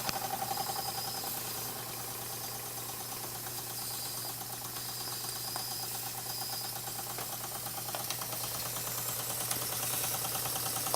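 Jensen No. 5 toy steam engine with a riveted boiler running steadily, its piston chuffing in a fast, even rhythm.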